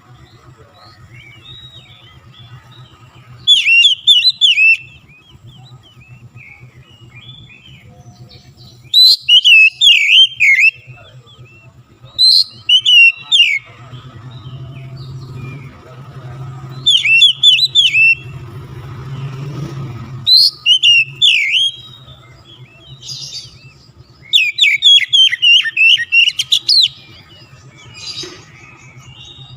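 Oriental magpie-robin (kacer) in full song: loud bursts of rapid, high whistled and scratchy phrases, each lasting a second or two, repeating about seven times with quieter chirps between. A steady low hum runs underneath.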